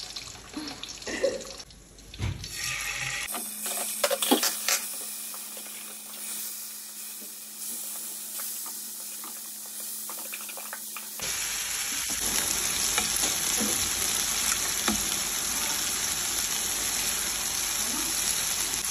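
Marinated chicken pieces sizzling in hot oil in a frying pan. The sizzle is steady and grows louder about eleven seconds in. A few utensil clicks come in the first seconds.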